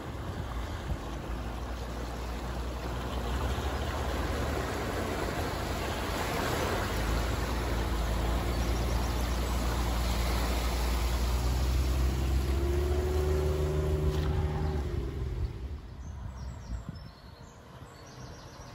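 2020 Land Rover Defender driving through shallow lake water, its engine running under the rush and splash of water around the wheels. The engine note rises briefly about thirteen seconds in as the SUV climbs out onto the bank, then the sound drops away sharply.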